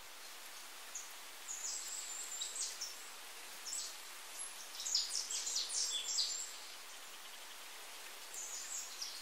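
Birds chirping, short high notes in three spells, over a steady background hiss.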